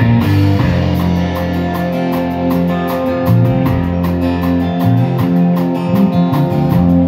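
Live band playing an instrumental passage between vocal lines: electric and acoustic guitars and electric bass over a drum kit, with a steady cymbal beat.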